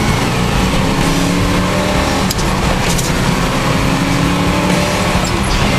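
1970 Camaro Z-28's 350 V8 accelerating, heard from inside the cabin. The engine note rises, dips briefly about two seconds in at a gear change, then rises again.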